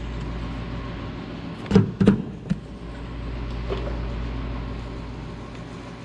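Small air-powered buffer spinning steadily while its dirty polishing pad is cleaned. A few sharp knocks come about two seconds in.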